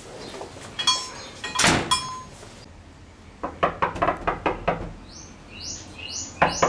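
A few sharp knocks and clicks, the loudest about a second and a half in, then a quick run of taps, and birds chirping in short falling chirps near the end.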